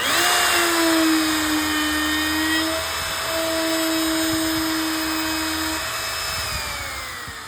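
Wood router with a 45-degree carbide chamfer bit starting up abruptly to a steady high whine and routing a chamfer along the edge of a board. Near the end it is switched off and the whine falls in pitch as the motor spins down.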